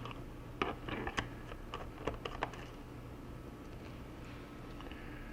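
Light clicks and taps of a small screwdriver backing a screw out of a laptop's plastic bottom cover, in a quick irregular run that stops about halfway through.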